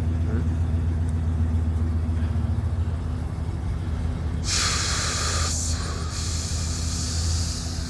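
EMD F59PHI diesel locomotive idling with a steady low hum. About four and a half seconds in, air starts hissing loudly from the train's air brake system in two long bursts with a short break between them.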